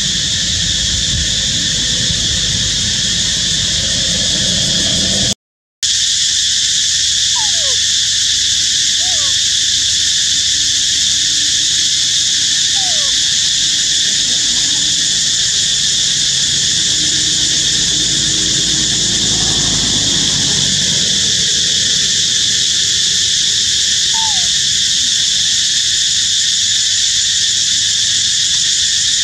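Steady, loud drone of insects in tropical woodland, with a few short falling chirps over it. The sound drops out for a moment about five seconds in.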